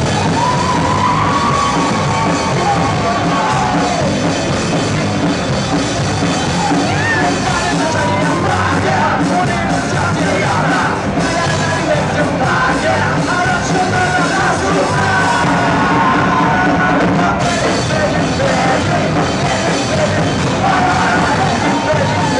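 A rock band playing live, with a full electric band sound under a lead vocal that is half sung, half yelled.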